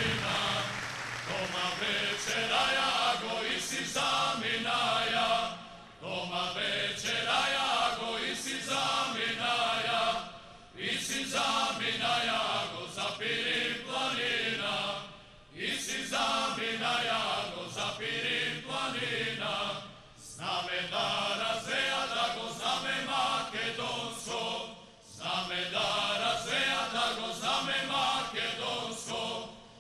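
Male vocal ensemble singing a Macedonian song a cappella, in phrases of about five seconds with a brief breath between each.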